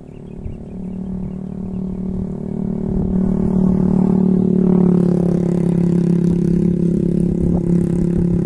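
A small engine running steadily, growing louder over the first few seconds and dropping slightly in pitch about halfway before holding level.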